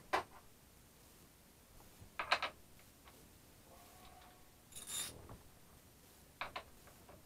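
Scattered clinks and clatters of hand tools being picked up and handled at a workbench, with a short cluster of knocks about two seconds in, a brief scrape about five seconds in and a couple of clicks near the end.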